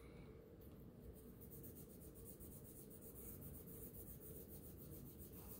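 Small folded piece of sandpaper rubbed over a chrome-plated watch case in quick, even back-and-forth strokes, giving a faint, fast scratching. It is hand-sanding the chrome to a satin finish.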